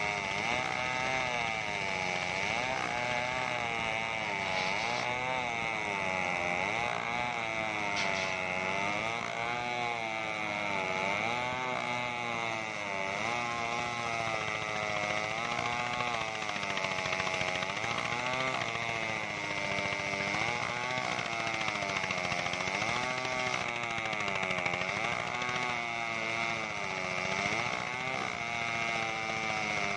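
Homemade engine-driven circular saw bench ripping a coconut-palm log: the engine runs without a break, its pitch wavering up and down as the blade takes the load, with a steady high whine over it.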